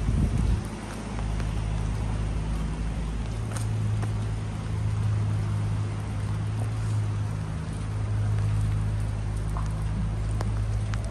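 A steady low mechanical hum that grows stronger a few seconds in, over the even hiss of rain on a city street, with a few light ticks.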